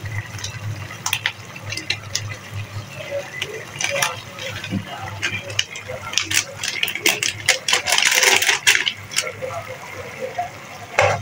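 Plastic spice sachet crinkling as it is emptied and shaken over chicken in an aluminium karahi, with scattered clicks of a metal spatula on the pan; the rustling is densest about eight seconds in.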